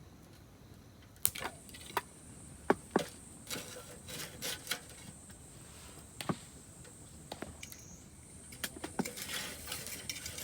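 Firewood knocking and clicking in irregular sharp strokes, a dozen or so, the loudest about a second and three seconds in.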